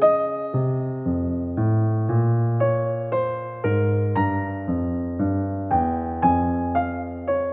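Background music played on a piano-like keyboard: a soft melody over chords and bass notes, struck about twice a second and each fading away.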